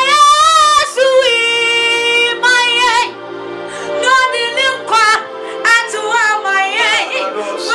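A woman singing an emotional gospel worship song in short phrases, her pitch sliding and wavering, over steady held backing chords.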